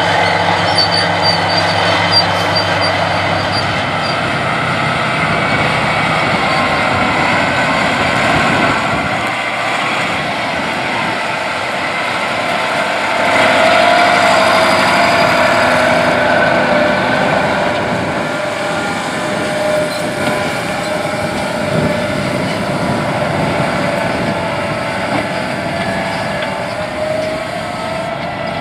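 White 4-225 Field Boss articulated four-wheel-drive tractor's Caterpillar 3208 V8 diesel running steadily under load while pulling an 11-shank chisel-plow mulch tiller eight inches deep through corn stubble. It grows louder for a few seconds about halfway through, then settles back.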